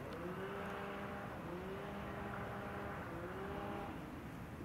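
A motor running three times in a row, each time rising quickly in pitch and then holding steady for about a second.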